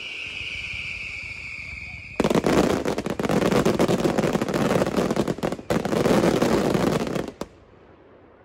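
Fireworks: a high whistle that falls slightly in pitch for about two seconds, then a sudden dense barrage of rapid crackling bangs for about five seconds that cuts off abruptly.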